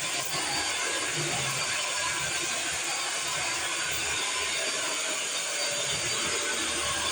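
Vacuum cleaner running steadily: a constant rushing hiss with a faint, thin high whine.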